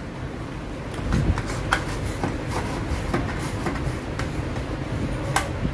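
A steady low hum with light clicks and taps scattered through it, from small tools being handled at an electronics repair bench; one sharper click comes near the end.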